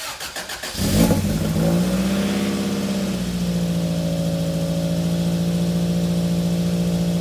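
1989 Toyota MR2's supercharged 1.6-litre four-cylinder engine, running through a new Fujitsubo Legalis-R exhaust: it cranks for about a second, catches, runs a little fast briefly, then settles into a steady idle.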